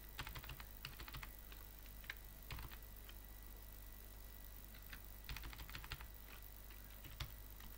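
Faint computer keyboard typing: three short bursts of rapid keystrokes with a few single key taps between them.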